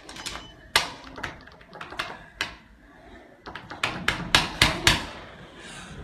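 Scattered sharp taps and clicks, with a quick run of them about four seconds in.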